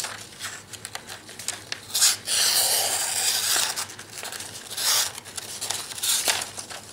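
A sawback US Air Force survival knife's blade slicing through sheets of paper in several rasping strokes, the longest about two seconds in. This is a paper-cutting test of an edge the owner finds 'hairy' and not as sharp as the Mark I's.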